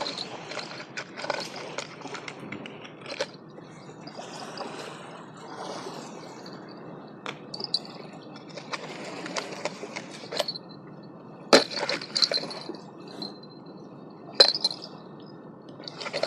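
Scattered sharp clicks and knocks of fishing tackle being handled over a steady rushing noise. The sharpest click comes a little past halfway, and another comes near the end.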